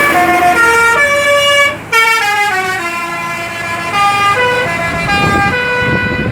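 Bus 'telolet' horn, a multi-tone musical air horn, playing a tune of short stepped notes, with a brief break just before two seconds in.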